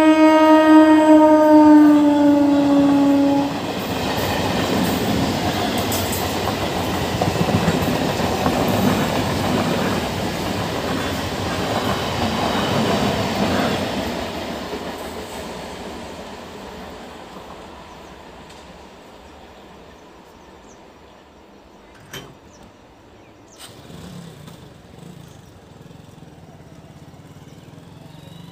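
Electric multiple-unit local train sounding a long horn, its pitch dropping slightly as it passes, then the train's wheels clattering and rumbling over the rails and fading away into the distance.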